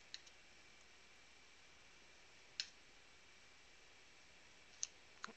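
Near silence broken by four sharp clicks of trading cards as they are flipped through by hand: one near the start, one about halfway, and two close together near the end.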